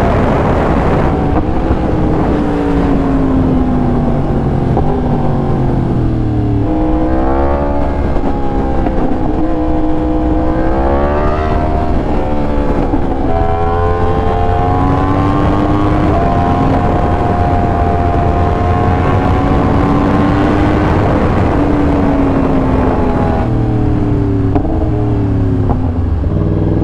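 2020 Yamaha R1's crossplane inline-four, through an SC Project exhaust, being ridden. Its note climbs and falls as the bike speeds up and slows, with sudden pitch drops at the gear changes and a run of stepwise drops near the end, like downshifts. A dense low rush of wind and road noise sits under it.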